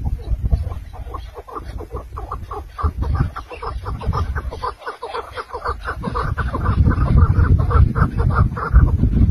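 Chukar partridges calling, a rapid run of short clucking notes, over a low rumble that grows louder in the second half.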